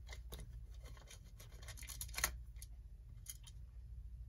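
Small nuts being loosened on the metal back plate of an old Hammond electric clock: light, irregular metallic clicks and scrapes of tool on nut, with a cluster and a sharper click about two seconds in.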